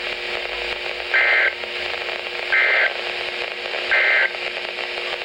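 NOAA Weather Radio broadcast sending three short two-tone SAME data bursts about a second and a half apart, the end-of-message code that closes an EAS warning. They play over steady static hiss from weak reception.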